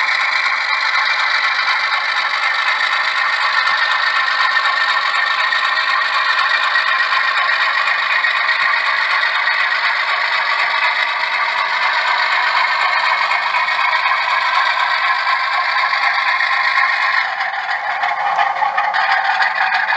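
Model train rolling slowly past on the track, its wheels making a steady scraping, rattling clatter on the rails, easing a little near the end as the last cars go by.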